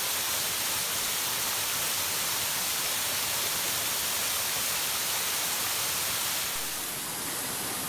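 Waterfall: water pouring down a rock face in several streams, a steady rushing hiss that softens slightly near the end.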